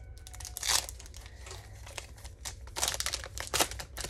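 Pokémon booster pack's foil wrapper crinkling and tearing as it is opened, with a run of irregular sharp crackles that come in several louder clusters, and the cards being pulled out and handled.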